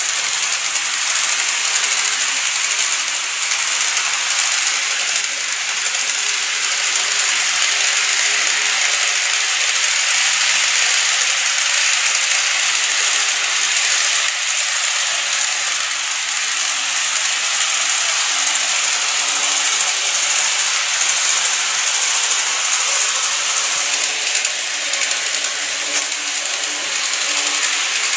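Model train of the Seibu 9000 series running along the layout track: a steady hiss-like running noise of wheels and small motor, with a faint hum under it.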